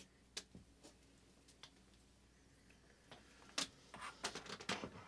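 Faint, irregular clicks and taps of a USB cable being handled on a tabletop. There are a few scattered ticks at first, then a busier run of clicks and light knocks over the last second and a half as the cable is brought to the laptop.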